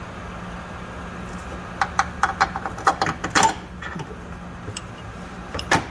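A quick run of light metallic clicks and taps from tools and metal parts being handled during a rear shock install, then two sharp clicks near the end, over a steady low hum.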